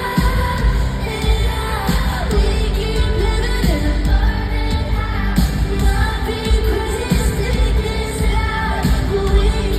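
Live pop music played over a large arena sound system: a heavy bass beat under a woman's sung vocal line.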